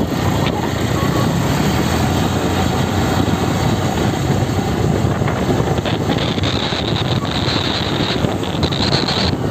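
Wind buffeting the microphone over the drone of a moving motorbike and its road noise, steady throughout. A high, steady whine joins about six seconds in and cuts off near the end.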